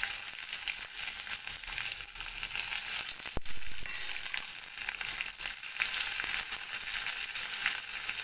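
Chopped shallots, dried red chillies and curry leaves sizzling steadily in hot oil in a small iron tempering pan: the tempering for a moong dal curry. There is a single sharp click about three and a half seconds in.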